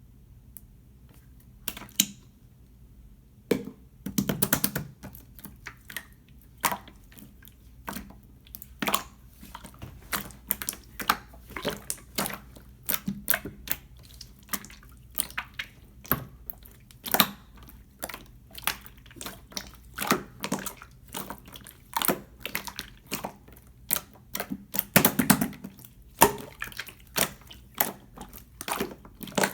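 Clear slime being squished and pressed by hand, giving irregular sharp sticky clicks and pops, roughly one to three a second.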